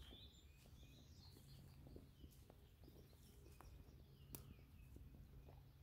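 Near silence with faint bird chirps, clustered in the first second or so, over a low steady rumble and a few soft ticks.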